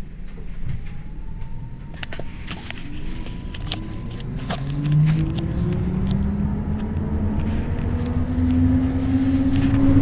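Bombardier Flexity Outlook tram's electric traction drive whining, its tones climbing steadily in pitch as the tram gathers speed, with scattered clicks and knocks.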